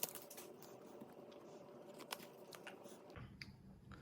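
Faint handling of trading cards: a few soft clicks as cards are slid and flipped in the hands, over a low room hum.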